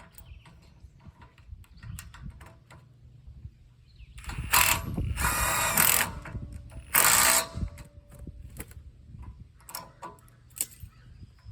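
Ratchet wrench with a 1/2-inch socket clicking as it tightens a bolt. Scattered light clicks come first, then two loud runs of rapid ratcheting, one starting about four and a half seconds in and a short one about seven seconds in.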